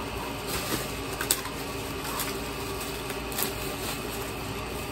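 Plastic bubble-wrap packaging and a cardboard box being handled, rustling and crinkling, with sharp crackles about a second in and again past three seconds.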